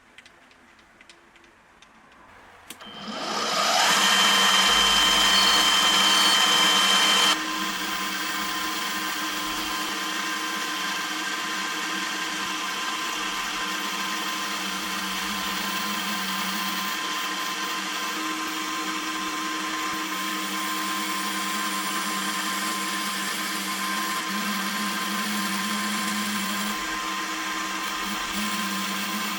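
Manual milling machine starting up about three seconds in, its whine rising in pitch, then running steadily. A few seconds later the level drops suddenly and it carries on running with an even whine.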